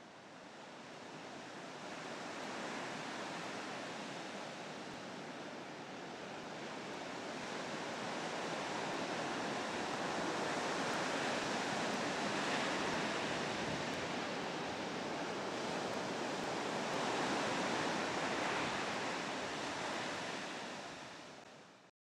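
Ocean surf: waves breaking and washing in, fading in from silence and swelling louder in slow surges, then cutting off suddenly at the end.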